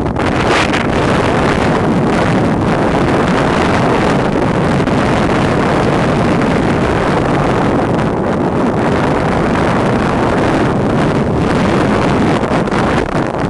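Toboggan run down a packed-snow track: wind buffeting the microphone over the steady hiss and rumble of the sled's runners on the snow, loud and unbroken.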